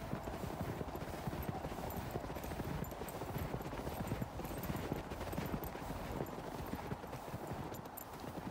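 Footsteps crunching steadily through snow, with a low rumble underneath.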